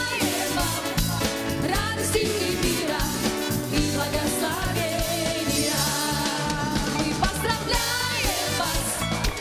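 Live upbeat worship song: a group of singers with a band, the drum kit keeping a steady beat.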